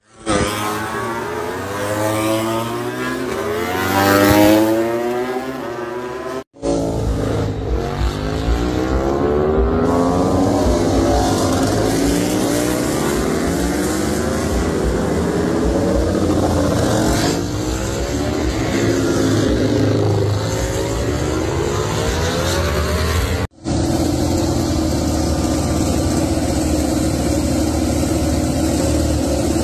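Several MotoGP race bike engines revving and accelerating away, their pitches sweeping up and down over one another, then bikes passing at speed. Near the end, after a sudden cut, Gresini Racing Ducati Desmosedici V4 engines run at a steady pitch on paddock stands during warm-up.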